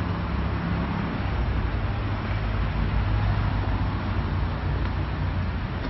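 An engine running steadily at idle, a low, even hum with a noisy wash over it.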